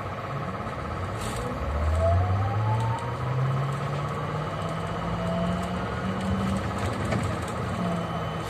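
Bogdan T901.17 articulated trolleybus's electric traction drive whining as it accelerates: a low tone climbs steadily in pitch for about five seconds, with a fainter higher whine rising alongside it, then levels off and dips slightly near the end, over a steady high tone.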